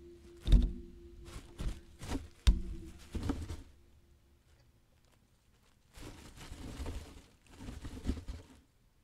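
Rubbish being moved by hand inside a dumpster: several sharp knocks and clatters in the first few seconds over a faint steady hum, then two stretches of plastic bags and packaging rustling and crinkling near the end.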